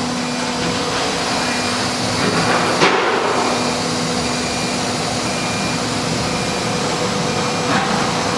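Disc-type automatic-tool-change CNC router running with a steady mechanical whir and hum. A single sharp knock comes about three seconds in.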